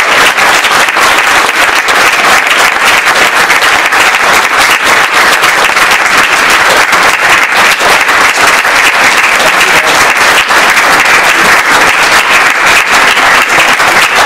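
Audience applauding: many people clapping at once, at an even level.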